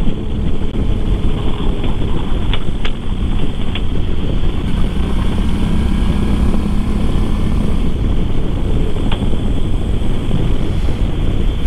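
Suzuki V-Strom 650 motorcycle riding at road speed: wind rushing over the microphone mixed with the hum of its V-twin engine and tyre noise, with a few faint clicks.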